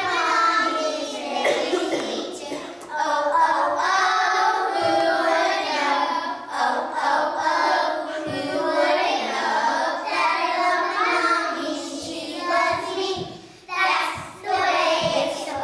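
A group of preschool children singing a song together in unison, with a short break near the end.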